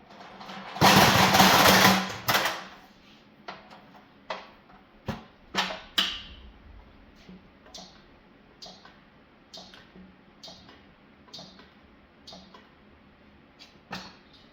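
Manual pallet jack being worked: a loud rush of noise for about a second and a half, a sharp clank, then a run of sharp metallic clicks about once a second that grow fainter.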